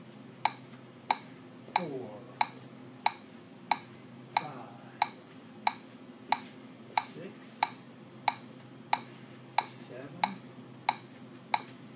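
Metronome clicking steadily at about 92 beats per minute, a sharp pitched tick roughly every two-thirds of a second, keeping the stepping tempo.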